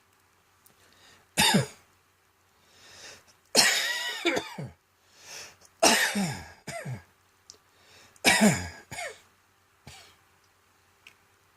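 A person coughing in four bouts, each falling in pitch, some with a second smaller cough right after, and breaths drawn in between. It is a cough the owner puts down to a seasonal throat tickle.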